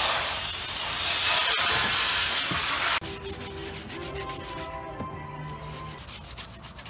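Water spraying from a garden hose nozzle onto a hard plastic seat back, a loud steady hiss that cuts off suddenly about three seconds in. Near the end a bristle brush scrubs the wet plastic in quick, repeated strokes.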